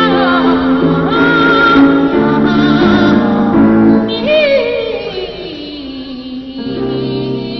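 Altar boys singing with accompaniment. About four seconds in, one voice slides down in a long falling glide.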